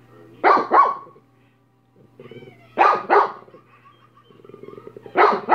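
Dog barking in pairs: three double barks, each pair about two and a half seconds after the last.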